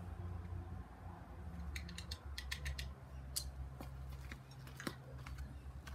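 Light clicks and scrapes from handling a Smith's Pack Pal wood-grating tinder maker and fatwood shavings, with a quick run of them about two seconds in, over a low steady hum.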